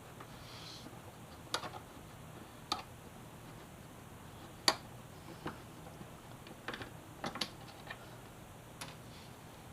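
Scattered sharp clicks and clinks of hand tools and fasteners as motorcycle fairing panels are being unbolted. The loudest click comes about halfway through, and a few come in quick succession a little later.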